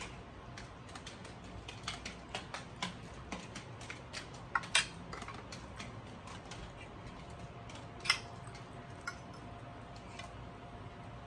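Eating sounds: a metal fork clinking against a plate, with chewing and small mouth clicks, in a run of short sharp clicks; the loudest clinks come a little before halfway and about two-thirds of the way through.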